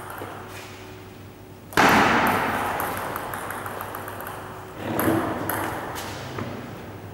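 Table tennis ball ticking off bats and table in a reverberant hall. About two seconds in, a sudden loud rush of noise starts and fades away over a few seconds, with a smaller swell near five seconds.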